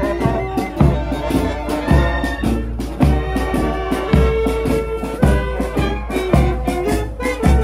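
Marching band playing live: sousaphones, trumpets and saxophones carry the tune over a bass drum struck about once a second, with snare drum strokes between.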